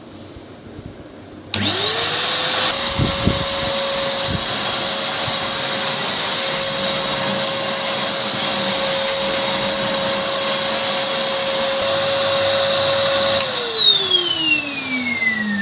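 Numatic Nuvac VNP 180-1 vacuum cleaner's 1200-watt motor switched on, spinning up with a rising whine and running at its single speed with a steady whine and rush of air, then switched off near the end and winding down with a falling whine.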